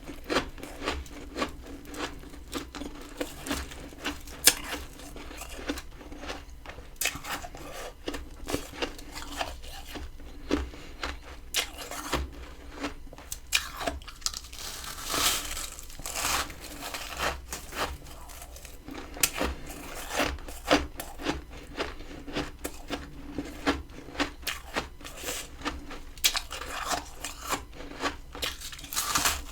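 Freezer frost crunching as it is bitten and chewed, in irregular sharp crunches about one or two a second with crackling in between.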